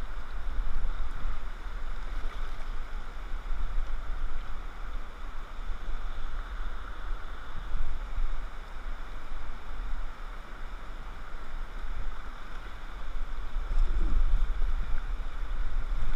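River rapids rushing around a kayak, a steady noise of moving water with a low rumble underneath.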